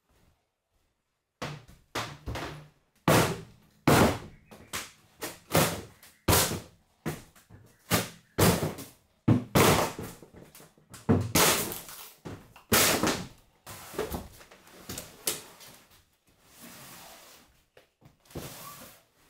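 A long run of heavy wooden thuds and bangs, one or two a second, each with a short ring after it, thinning to a few softer knocks near the end: old wooden tansu chests of drawers being knocked about and thrown out.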